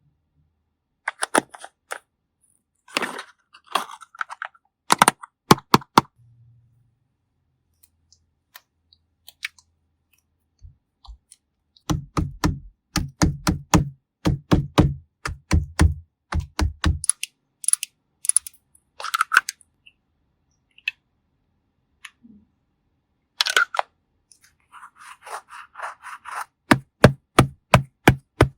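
Close-miked ASMR makeup sounds: sharp clicks and quick runs of tapping, several taps a second, mixed with short scratchy brushing bursts.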